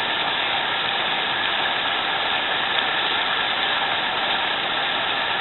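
River rapids rushing over rocks in a steady, even rush.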